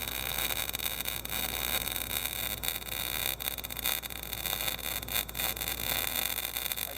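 Electric arc welding: the arc crackles and sizzles steadily, with irregular sharp pops.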